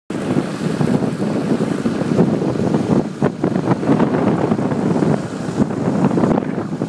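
A car ploughing through floodwater: water rushing and splashing against the wheels and body without a break.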